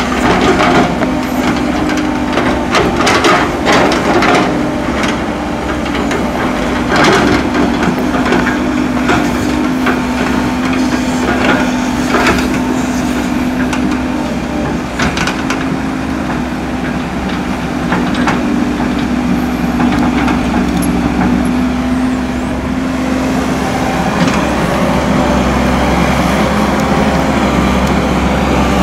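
Heavy diesel engine of an excavator running steadily, with irregular clanks and knocks, most of them in the first half.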